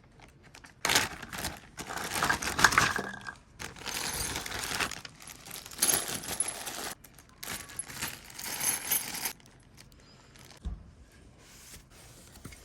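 Handling noise from patio furniture assembly: parts and small metal hardware being moved about, with irregular rustling and sharp clinks. It goes quiet after about nine seconds.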